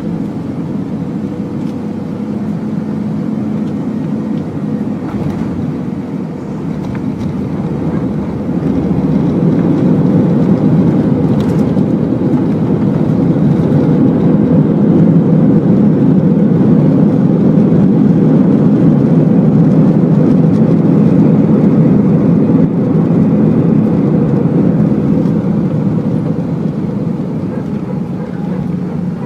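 Airbus A320 engine and airflow noise heard inside the cabin: a steady low roar. It swells louder about eight seconds in, holds, then eases off near the end.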